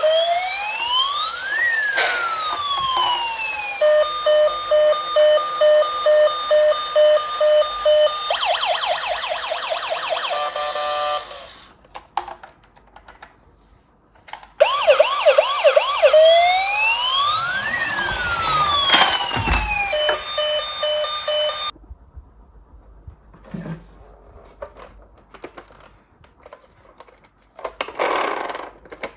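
Toy ambulance's electronic siren cycling through patterns: swooping up-and-down wails, a steady two-tone hi-lo, then a fast warble. It stops about 11 seconds in, starts again about 3 seconds later with a thump partway through, and cuts off about 22 seconds in, leaving a few faint clicks and a short rustle near the end.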